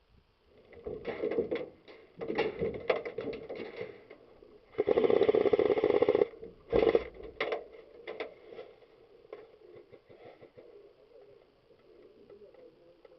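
Airsoft electric guns (AEGs) firing full-auto bursts of rapid clicks: a few short bursts, then one continuous burst of about a second and a half near the middle, and another short burst right after it.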